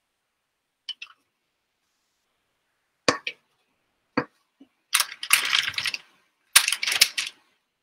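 Spatula scraping and knocking against a metal mixing bowl while thick cream cheese mixture is scooped out. There are a few sharp clicks, then two longer scraping bursts in the second half.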